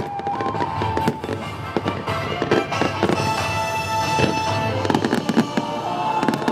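Aerial firework shells bursting, many bangs in quick succession, over music playing a held melody.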